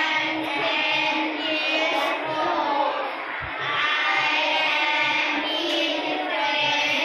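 A class of schoolchildren reading aloud together in unison, many young voices in a steady sing-song chant.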